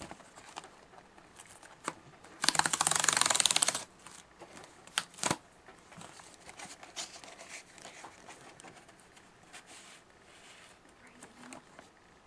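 Foil hockey card pack being torn open: a loud rapid ripping crackle about two and a half seconds in, lasting just over a second, with scattered crinkles and clicks of the wrapper and cards being handled before and after.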